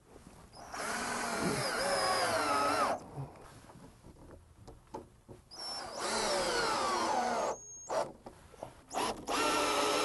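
Cordless drill driving screws through the dehumidifier's hanging straps into a wooden floor joist. It makes three runs of a second or two each, and within a run the motor whine drops in pitch as the screw bites into the wood and snugs up.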